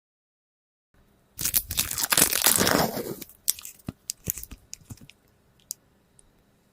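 Crunchy slime being squeezed and crushed by hand, starting after about a second of silence: about two seconds of dense crackling, then scattered pops and clicks that thin out.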